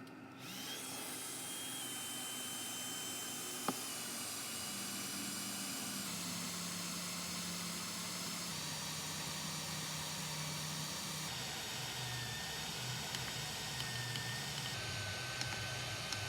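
Steady hiss of blowing air that starts abruptly about half a second in, with a single sharp click a few seconds later.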